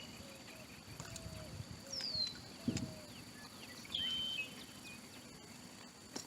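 Faint bird calls: a downward-sliding whistle about two seconds in and a short, flat call about four seconds in, over a steady high-pitched hum, with a single knock in the middle.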